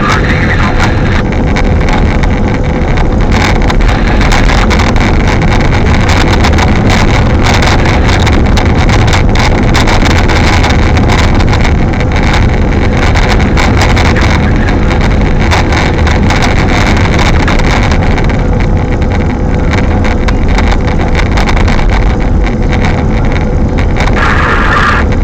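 Strong high wind buffeting the microphone: a loud, continuous low rumble with constant gusty flutter.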